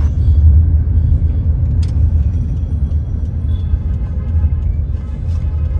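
Steady low rumble of a vehicle moving through city traffic, with a single sharp click about two seconds in.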